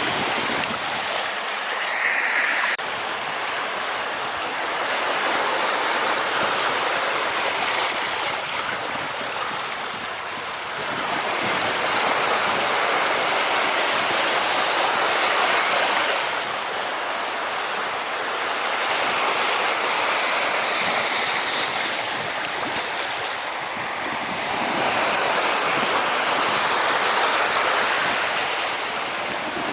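Water rushing steadily, swelling louder and easing off every few seconds.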